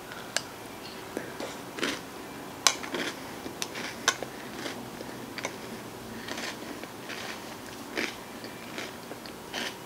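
Close-miked chewing of a mouthful of ice cream sundae with chocolate and cookie toppings, with soft crunches and wet mouth clicks at irregular intervals.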